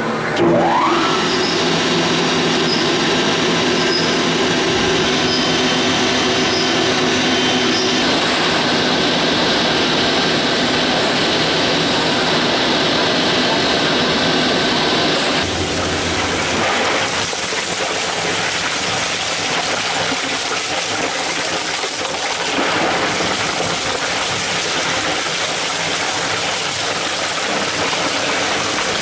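An industrial shredder's electric drive spins up with a rising whine when started. It then runs steadily, turning into a dense, noisy grind from about halfway through as the cutting head shreds plastic pill bottles.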